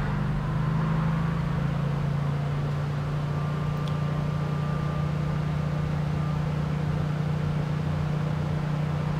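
Generac air-cooled home standby generator running with a steady low hum, heard from inside the house, just after start-up and before the transfer switch has put the home's load on it.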